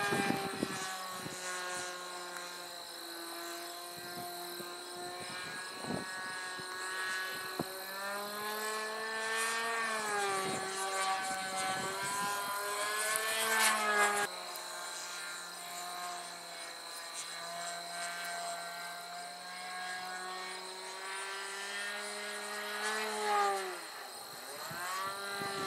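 Twist 60 3D radio-controlled aerobatic plane's engine and propeller running in flight, steady for stretches and rising and falling in pitch several times as it throttles through manoeuvres.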